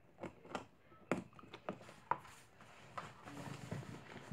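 Small plastic slime containers and slime being handled: a string of short, light clicks and taps at uneven intervals.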